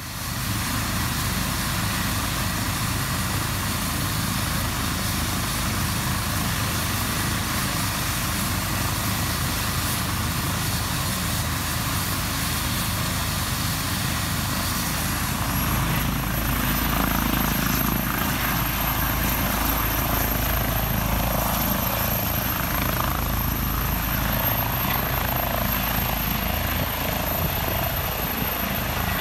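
Airbus EC135 rescue helicopter running its turbines and rotors, a steady loud rush with a thin high whine. The whine rises in pitch about halfway through, and the low rotor thud gets heavier as the helicopter lifts off near the end.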